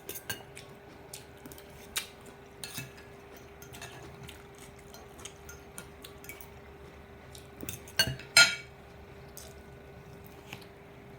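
Eating utensils clicking and clinking against a plate of salad, scattered small taps with a louder clatter about eight seconds in, over a faint steady hum.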